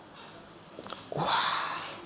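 A couple of faint clicks, then a loud, breathy exhale or gasp from a person, starting just past a second in with a brief rising tone and fading out, during a barber's head massage and neck cracking.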